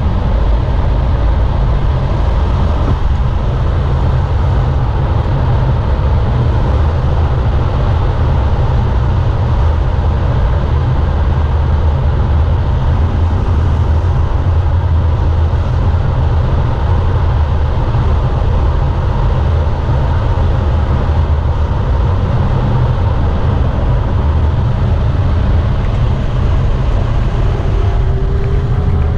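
Steady loud rumble of a BMW M4 F82's twin-turbo straight-six at speed, mixed with wind and road noise coming in through an open passenger window. Near the end the engine note begins to rise as it accelerates.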